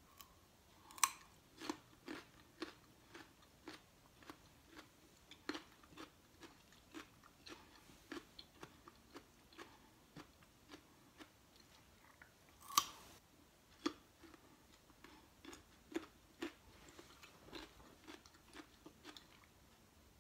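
Raw carrot sticks being bitten and chewed: a steady run of short crunches, about two a second, with two loud, sharp bites, one about a second in and another about two-thirds of the way through.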